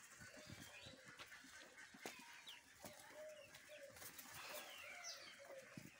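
Domestic pigeons cooing faintly in repeated short low calls as they feed, with some higher bird chirps and scattered light taps.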